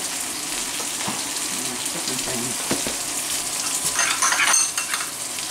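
Breaded pollock fillets sizzling steadily as they shallow-fry in oil in a skillet. Over it, a spoon stirs and clinks in a small glass bowl of mayonnaise and garlic, with a few short bright clinks about four seconds in.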